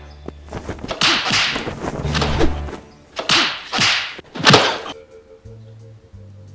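Martial-arts fight sound effects: a quick run of about six whooshing swishes of punches and kicks with impact hits, over background music with a low drone. The hits stop about five seconds in, leaving only the quieter music.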